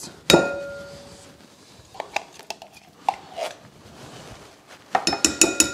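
Metal spoon scraping tomato paste out of a tin can into a ceramic bowl of sauce: one sharp ringing clink near the start, a few soft knocks in the middle, and a quick run of about half a dozen ringing taps near the end as the spoon knocks against the can and bowl.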